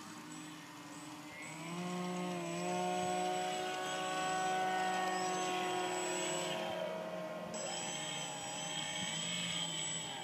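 Electric motor and propeller of a Multiplex FunCub radio-controlled plane taxiing on grass: a steady pitched whirr that grows louder about a second and a half in and then holds.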